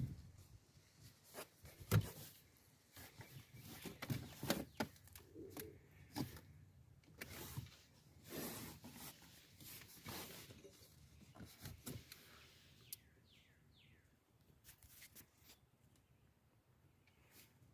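Scattered clicks, knocks and rustles of hands working on car seat wiring and plastic trim. It goes near quiet after about twelve seconds.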